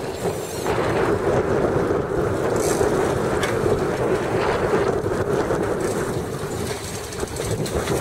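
Fishing boat's engine running with a steady hum.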